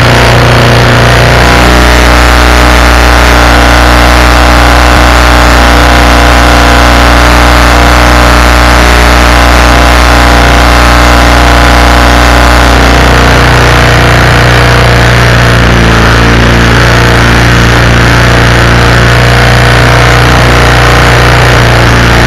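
Predator 212cc single-cylinder engine, mounted inboard in a canoe, running loud and steady at a constant speed.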